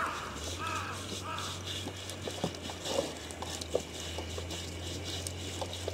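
Repeated scraping strokes of a knife working over a slaughtered pig's skin to strip off the hair, with a few sharp clicks. A bird calls several times in the first second and a half.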